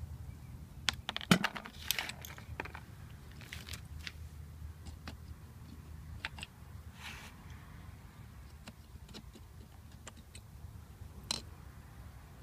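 Small metal clicks and clinks from a screwdriver and loose alternator parts being handled while the rectifier and brush-holder assembly is worked free. There is a quick cluster of clicks about a second in, then scattered single ticks, over a low steady hum.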